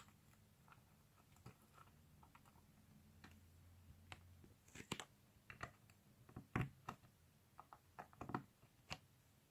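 Faint clicks and taps of small plastic Lego minifigure pieces being handled and pressed together, sparse at first, then a run of sharper clicks in the second half.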